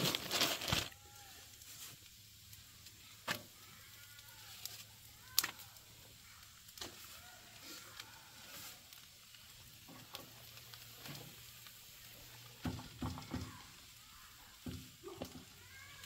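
A crinkling rustle in the first second, then a few sparse clicks and knocks of cookware and utensils being handled, over a faint steady hum and hiss.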